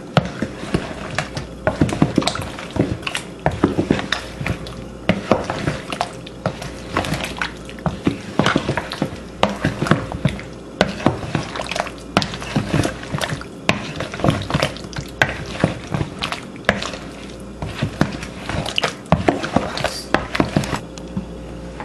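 A hand stirring slices of kingfish through oil and chopped onions, peppers and tomatoes in a plastic bowl: a rapid, irregular run of wet clicks and slaps as the oily pieces are turned over.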